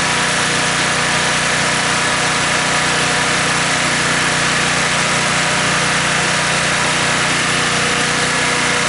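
Honda EG1400 portable generator's engine running steadily at constant speed, its clogged fuel valve and carburetor freshly cleaned.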